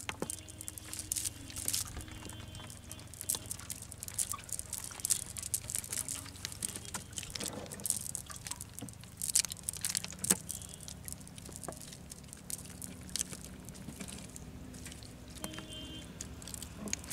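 Wet cast net full of snails and weed being handled and picked over by hand on a wooden boat deck: irregular clicks, pats and drips as shells, mesh and water move.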